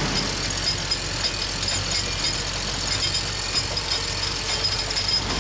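Steady low hum of a boat's engine, with a faint high fizzing hiss above it.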